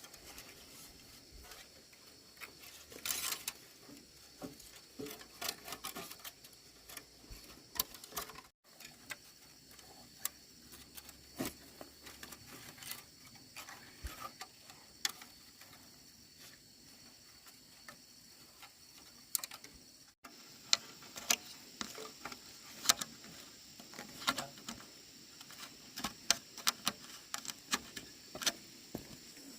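Irregular light clicks and taps, scattered throughout and coming thicker in the second half, over a faint steady high hiss.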